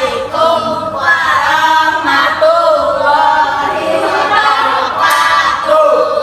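A group of teenagers singing together without instruments, loud, in long held notes that slide up and down.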